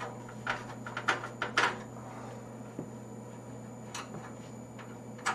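Scattered light metal clicks and knocks from a computer case as a tight thumb screw and PCI slot bracket are worked loose by hand, several in the first two seconds, one about four seconds in and another near the end.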